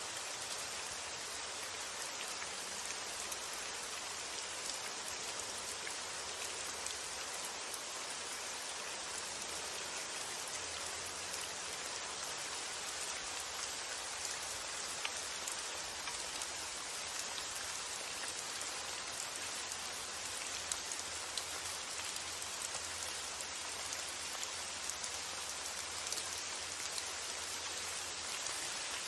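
Steady rain falling, an even hiss with many small drop ticks and a faint low rumble underneath.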